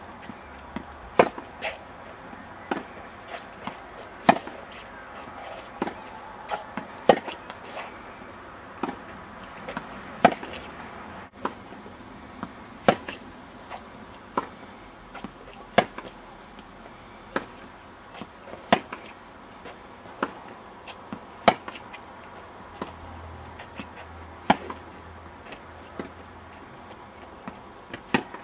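Tennis balls struck with rackets in a steady rhythm of practice hits, a sharp crack about every second and a half, with softer ball bounces between.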